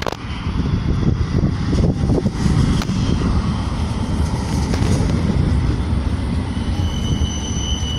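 Euskotren series 500 tram, a CAF Urbos, rolling past at close range as it slows into a stop: a steady low rumble of wheels on rail with a few sharp clicks, and a high steady whine that comes in near the end.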